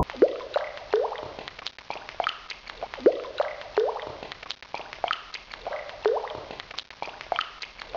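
Water dripping: irregular drops plinking into water, each a short note that slides upward in pitch, a few every second in loose clusters.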